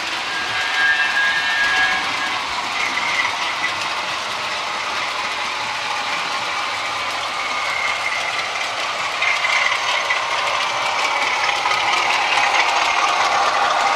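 OO gauge model trains running round the layout: a steady clatter of wheels on the track with motor whine. It grows a little louder about nine seconds in as a diesel locomotive and its coaches pass close by.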